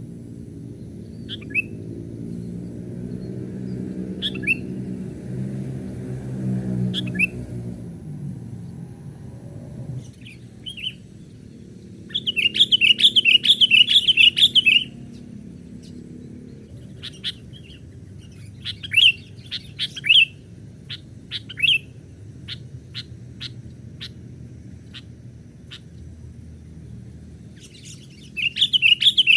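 Sooty-headed bulbuls (kutilang) calling: scattered short sharp chirps, and two loud bursts of fast, harsh chatter about two to three seconds long, one a little before halfway and one near the end. A low droning hum lies underneath through the first third.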